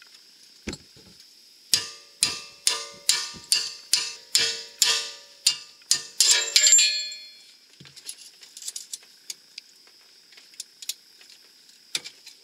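A hammer striking a steel pin punch to drive the bolt out of a Ford Freestyle's rear lower control arm: about a dozen ringing metal blows, roughly two a second, stopping about seven seconds in. A few light metal clicks follow, over a steady chirp of insects.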